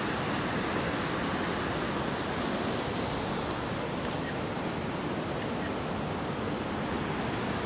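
Steady rushing of river rapids over rocks, an even wash of water noise.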